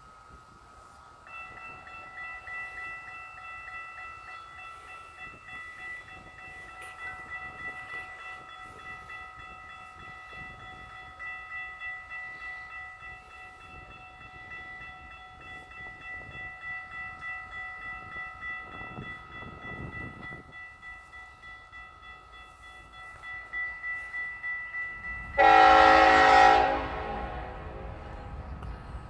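Railroad grade-crossing warning bell ringing steadily; near the end a locomotive's air horn gives one loud blast of about a second and a half as the BNSF train approaches the crossing, followed by the low rumble of the train.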